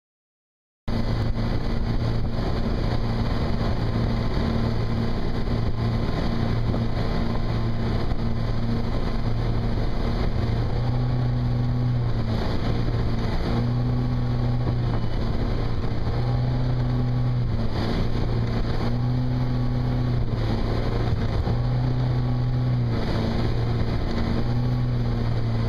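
Ski boat's engine running steadily under tow, mixed with wind on the microphone and rushing wake water; it starts about a second in. In the second half the engine note rises briefly and drops back every two to three seconds.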